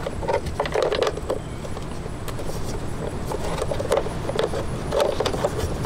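Scattered knocks, clicks and light rattles of the car's plastic interior trim panels being handled and fitted back into place.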